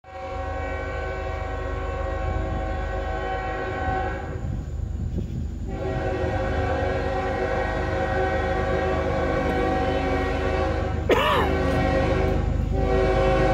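Norfolk Southern locomotive air horn sounding a chord in the grade-crossing pattern: a long blast, a second long blast about a second and a half later, a short blast, then a fourth long blast begins, over the steady low rumble of the approaching train. A brief sharp gliding sound, the loudest moment, comes just before the short blast.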